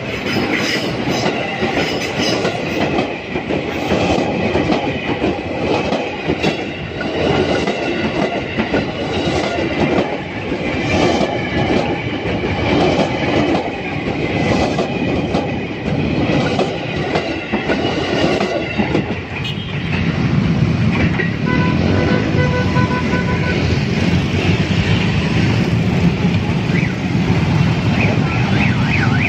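A KRL Commuter Line electric train running through a level crossing: its wheels click in a rapid rhythm over the rail joints, with high steady tones above, for about the first twenty seconds. Then a steady low hum of road traffic takes over, and a rapid pulsing beep sounds for about two seconds.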